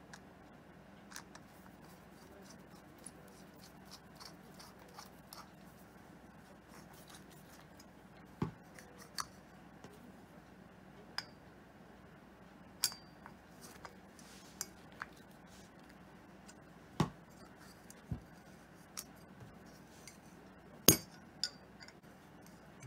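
A screwdriver and small metal parts clicking and clinking against a chrome motorcycle mirror housing as the mirror is taken apart by hand. The sharp clinks come at irregular intervals, the loudest about 21 seconds in.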